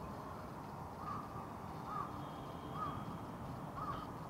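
A crow cawing four times, about once a second, over a steady low hum of city background.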